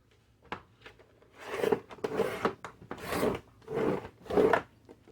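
Paper trimmer cutting paper: a couple of light clicks, then five quick strokes of the cutter along the paper, each under a second.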